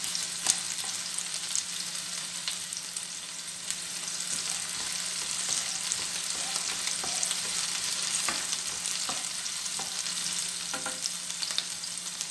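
Chopped onions sizzling in hot oil in a stainless steel frying pan, stirred with a plastic spoon that scrapes and clicks against the pan now and then, with one louder click about half a second in.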